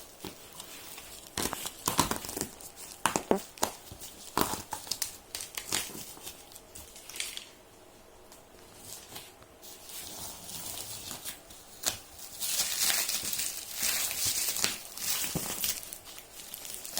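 Parcel packaging being opened by hand: crinkling and tearing of the wrapping, with scattered knocks and crackles in the first few seconds and a longer run of continuous rustling and tearing near the end.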